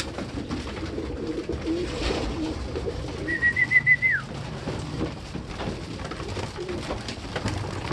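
Racing pigeons cooing as they crowd a feeder, with scattered taps. About three seconds in, a brief high chirping trill of a few quick pulses ends in a falling glide.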